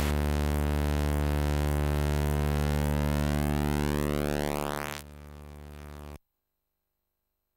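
Steady buzzy electronic tone from an 8-bit home computer's sound output, full of overtones with sweeping high partials. It drops in level about five seconds in and cuts off abruptly a second later.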